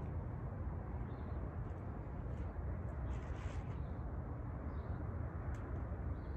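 Outdoor ambience: a steady low rumble with a few faint short chirps and small clicks scattered through it.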